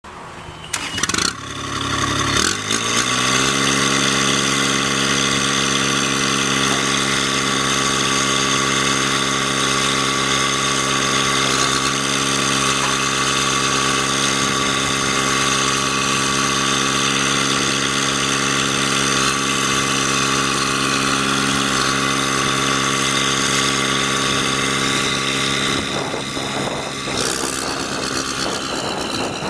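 2008 Boxer 425D walk-behind track loader's diesel engine cranking briefly, catching and rising to a steady run. About 26 seconds in, the steady note breaks up and gets a little quieter.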